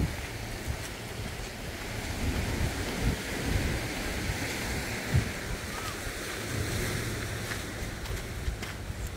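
Wind buffeting the microphone in uneven low gusts, over a steady wash of surf breaking on a sandy beach.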